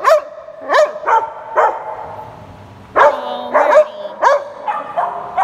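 Dogs barking and yipping for attention while another dog is being petted: about ten short, sharp calls with a pause about two seconds in, and a high whine held between the barks.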